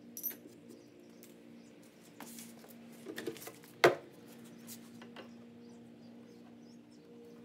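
Light clicks and taps of tools and cabinet hardware being handled, with one sharp knock about four seconds in as a wooden cabinet door is stood on its edge. A low steady hum runs underneath.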